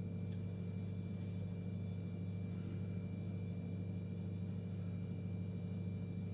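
Microwave oven running on high power, a steady low hum with a faint high whine, while coriander leaves dry inside.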